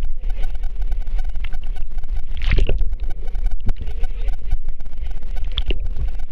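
Wave pool water sloshing and churning with a heavy low rumble. Two brief louder splashes or cries come about two and a half seconds in and again near the end.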